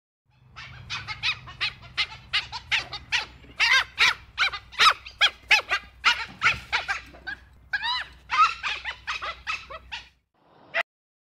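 Dhole (Asiatic wild dog) giving a quick run of short, high-pitched squeaking calls, three or four a second, over a steady low hum. The run breaks off about ten seconds in, and one more call follows.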